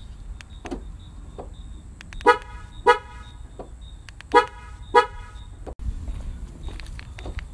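Car alarm sounding the car's horn in short blasts: four loud honks in two pairs, the pairs about two seconds apart, over a low steady background rumble.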